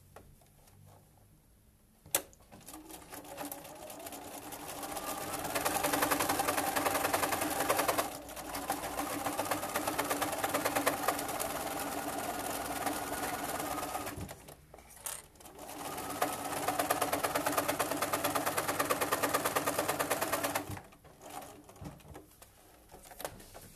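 Domestic sewing machine stitching a seam along a zipper through several fabric layers: after a click a couple of seconds in, it starts slowly and speeds up into a fast, steady run of stitches. It stops briefly a little past halfway, then runs fast again and stops about three seconds before the end.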